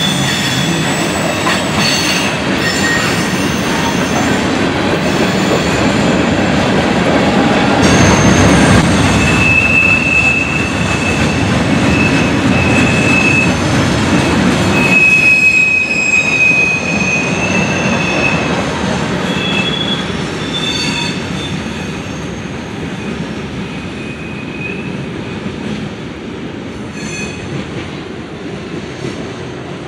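Train rolling past with its wheels squealing in intermittent high, steady tones over a heavy rumble. The rumble is loudest through the middle and eases over the last third.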